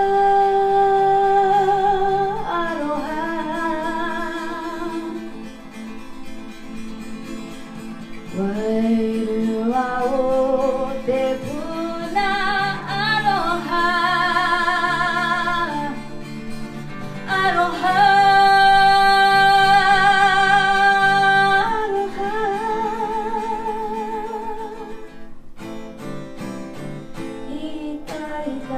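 A woman singing long held notes with vibrato, accompanied by a strummed acoustic guitar.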